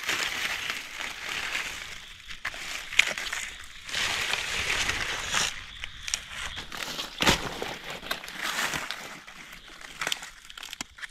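Dry leaf litter and grass rustling and crackling as hands push through the undergrowth, broken by a few sharp snaps, the loudest about seven seconds in.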